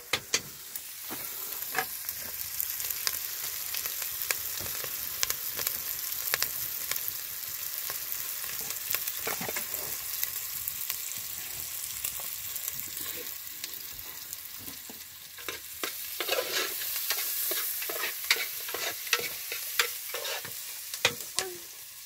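Food sizzling and frying in oil in a pot over an open wood fire: a steady hiss with many scattered sharp clicks.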